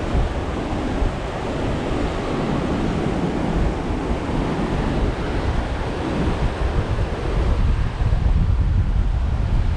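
Heavy post-typhoon surf churning and breaking against rocky sea cliffs, with strong wind buffeting the microphone as a low rumble. It swells a little louder near the end.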